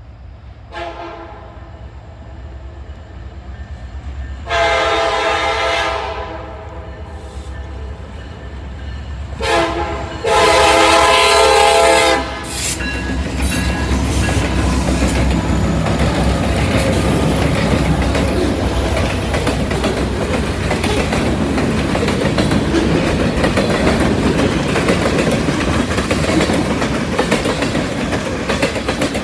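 Freight train's locomotive horn blowing a series of blasts on approach to a grade crossing, two long loud ones with a shorter one between them, ending about twelve seconds in. Then the diesel locomotives and the freight cars roll past close by with a steady rumble and the clickety-clack of wheels over the rails.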